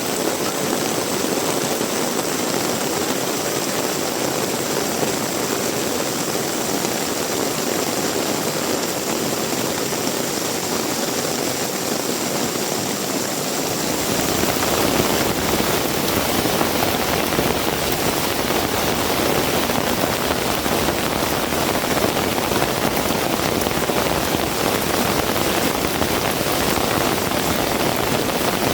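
Heavy rain falling steadily. About halfway through, the sound suddenly becomes fuller and deeper and a little louder.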